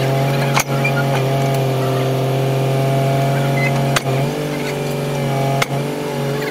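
Caterpillar excavator's diesel engine running steadily under load as the tracks are driven, with three brief sharp clicks.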